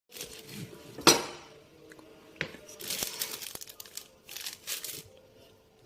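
Crinkling, rustling handling noises in several short bursts, with a sharp knock about a second in.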